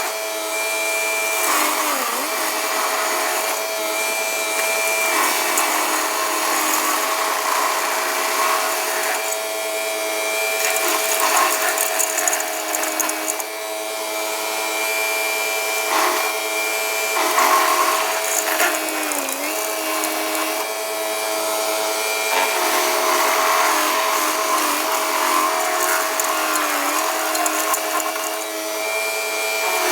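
John Deere 3039R tractor's diesel engine running hard, driving a Woodland Mills WG24 stump grinder whose cutter wheel is chewing into a stump. The engine's pitch sags briefly three times as the wheel bites in under load.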